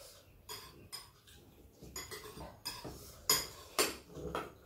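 Metal spoons and forks clinking and scraping against ceramic bowls and plates as several people eat: a scattered string of short clinks, the loudest a little after three seconds in.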